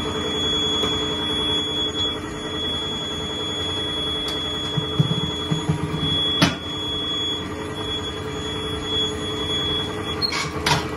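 Tyre-changer machine running while a tyre is worked onto an alloy wheel: a steady mechanical hum with a constant high whine that stops near the end. A sharp click comes about halfway through and two more just after the whine stops.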